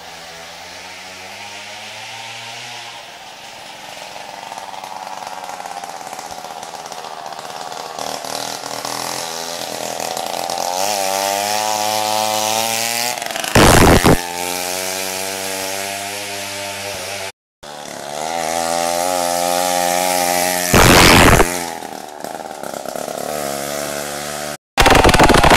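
Small two-stroke moped engine buzzing, its pitch gliding up and down as the revs rise and fall, and growing louder as the moped approaches. Two short, very loud rushes of noise come about 14 and 21 seconds in, and the sound cuts out twice briefly.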